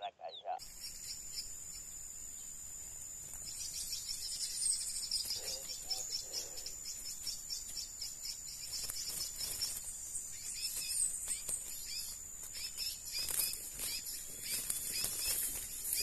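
Insect chorus in tropical scrub, a steady high-pitched drone with fast pulsing, coming in about half a second in and growing louder a few seconds later. A few short, high bird chirps break in over it.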